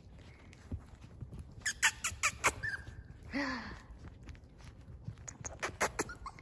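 Yorkiepoo puppies playing together: a short high squeak a little before halfway and a brief falling cry about halfway through, among scattered light clicks.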